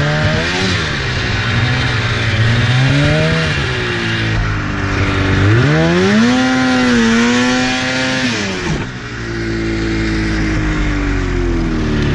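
2004 Polaris RMK 800 snowmobile's two-stroke twin engine revving up and down under throttle as the sled ploughs through deep snow. The revs climb sharply about six seconds in, hold, then drop away at about nine seconds to a lower, steadier pitch.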